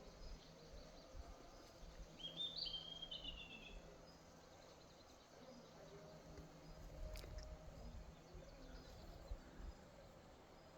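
Faint outdoor quiet with a single songbird call about two seconds in: a quick run of repeated high chirps lasting about two seconds. A low, uneven rumble of wind on the microphone runs underneath.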